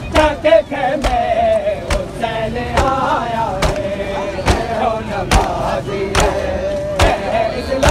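Crowd of mourners chanting a nauha together, with sharp unison chest-beating (matam) slaps a little more than once a second.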